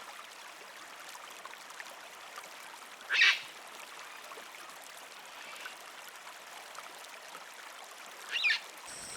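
Two short, shrill bird calls about five seconds apart, over a faint steady hiss.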